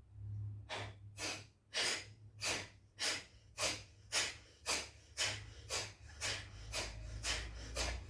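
Alternate-nostril Kapalbhati breathing: short, forceful exhalations through the nose, one nostril at a time, in a steady rhythm of about two a second.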